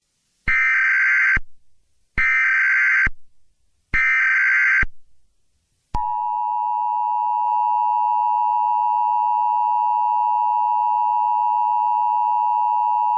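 Emergency Alert System tones: three short bursts of SAME header data, each a harsh digital screech of about a second, then about six seconds in the steady two-tone EAS attention signal starts and holds. It signals that an emergency alert message is about to be read.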